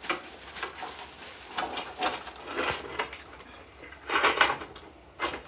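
Live rock crabs being pushed down into a cooking pot: hard shells scraping and clacking against each other and the pot in irregular knocks, with a louder scrape about four seconds in.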